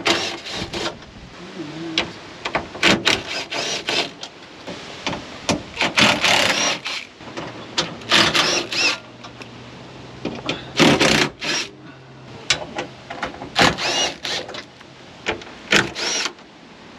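Cordless power driver with a socket spinning out the bolts that hold a sunroof frame to a truck roof, in a series of short whining bursts with brief pauses between them.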